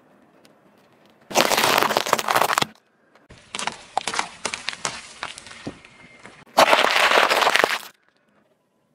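Car tyre rolling over and crushing fruit and vegetables on asphalt: a loud crunching burst lasting about a second and a half, then a stretch of sharp crackling pops, then a second loud crunching burst of about a second.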